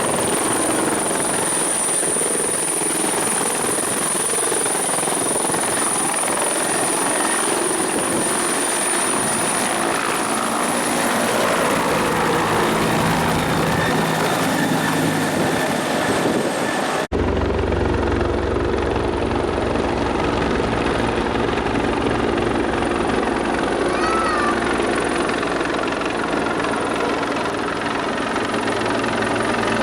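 Bell 412 twin-turbine helicopter running with its rotor turning: a steady high turbine whine over a dense, even rush of noise. Partway through the sound cuts abruptly to a closer, deeper rotor and engine rumble, with the whine still audible above it.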